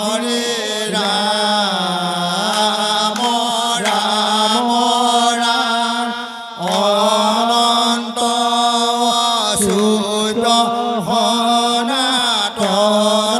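Assamese nam-prasanga: a group of men chanting devotional verses together, drawing out long held notes that slide in pitch, with a short break about six and a half seconds in. A few handclaps sound in the chanting.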